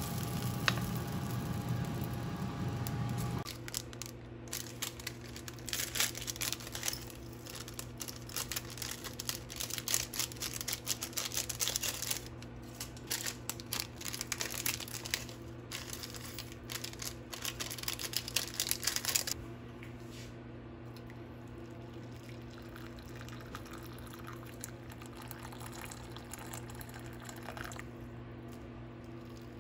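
Fish sizzling in oil in a frying pan for the first three seconds or so. Then a steady low kitchen hum with irregular crinkling and crackling that stops about two-thirds of the way in. Near the end comes the faint pour of hot water into a bowl of instant miso.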